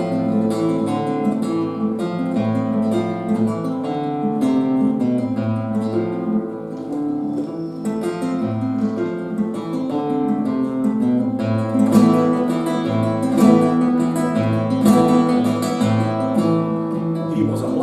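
Nylon-string classical guitar played solo, a mix of picked notes and strums with a moving bass line: the instrumental introduction to a song, before the singing starts.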